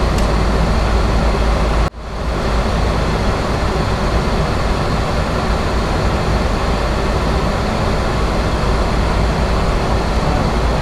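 Steady rush of air noise on the flight deck of a Boeing 737-800 in flight, with a strong low rumble. It cuts out sharply for an instant about two seconds in and swells back.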